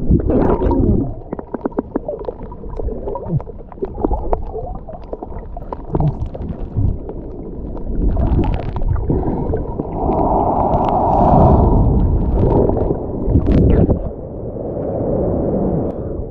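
Sea water sloshing and gurgling around a camera dipping in and out of the surf and filming underwater, with scattered splashes and a louder rushing burst about ten seconds in.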